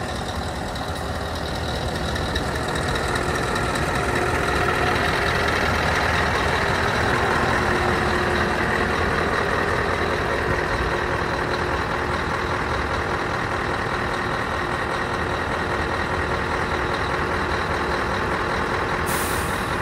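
Scania R560's V8 diesel engine idling steadily, growing louder over the first few seconds and then holding level.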